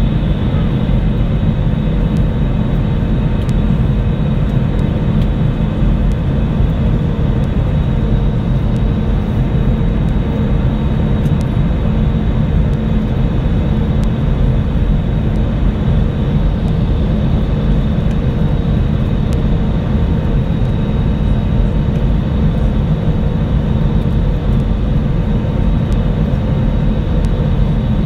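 Steady cabin noise of an Airbus A320-family airliner on final approach: its jet engines and the rush of air over the fuselage, with a faint steady hum running through it.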